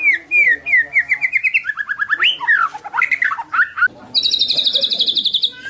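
White-rumped shama (murai batu) singing loudly: a quick run of falling whistled notes, then varied slurred phrases, and about four seconds in a fast, high rattling trill held for over a second.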